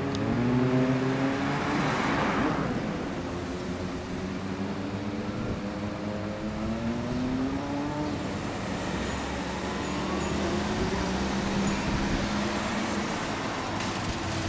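Kawasaki Balius II 250 cc inline-four with a loud titanium aftermarket muffler pulling away through the gears in traffic. Its pitch rises, drops at each shift and rises again, about three times, with a short rush of noise about two seconds in and a steady traffic hum underneath.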